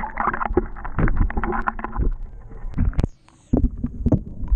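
Muffled underwater water sound from a submerged camera: a low rumble with irregular knocks and sloshes, dropping to a brief lull about three seconds in.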